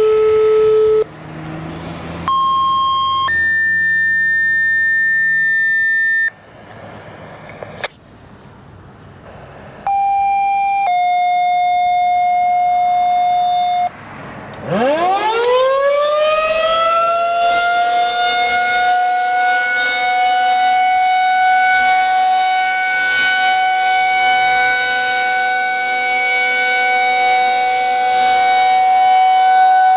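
Federal Signal 2001-SRNB electromechanical tornado siren winding up about halfway through, rising in pitch over several seconds and then holding a steady wail. Before it starts, a string of steady electronic tones at changing pitches, each one to three seconds long.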